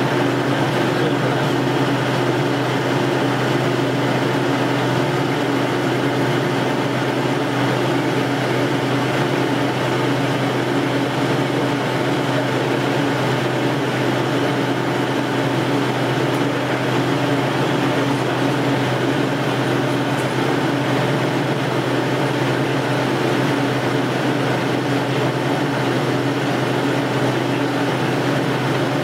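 Metal lathe running steadily with its spindle turning a metal bar under a turret-mounted cutting tool: an even machine hum with several steady tones and no change in speed.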